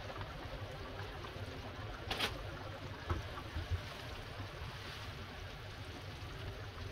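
Tomato sauce simmering and bubbling in a nonstick frying pan, a steady gurgling. A silicone spatula stirs and scrapes the pan in the middle, with a sharp scrape a little after two seconds and a few soft knocks after it.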